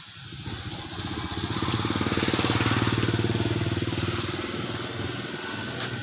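Small motorbike engine running as the bike rides off, getting louder over the first two seconds and easing back toward the end.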